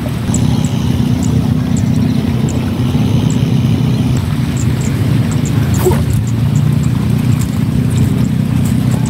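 A steady low motor drone, like an engine running, holding level throughout, with faint high ticks over it.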